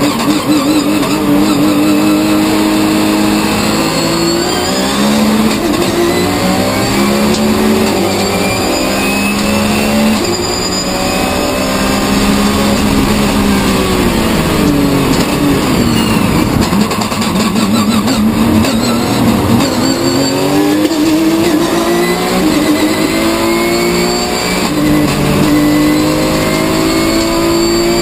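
Porsche 911 GT3 Cup flat-six racing engine heard from inside the cockpit, accelerating hard through the gears, its pitch climbing and dropping back at each upshift. About halfway through the revs fall away as the car slows and downshifts, then it climbs through the gears again.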